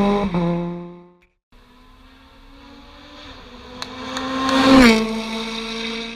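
Rally car engines at full speed: one car fades away in the first second, its pitch dropping as the driver shifts or lifts. After a brief break, another rally car approaches with its engine note climbing under load, passes close about five seconds in with a sharp drop in pitch, and pulls away.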